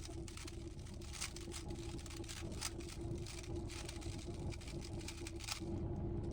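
Rubik's cube being handled and turned: quick, irregular plastic clicks and clacks, stopping about five and a half seconds in, over a steady low hum.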